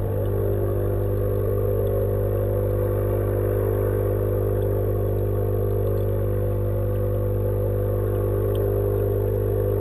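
Steady electric hum of the tank's pump, heard with the microphone underwater, with a few faint ticks.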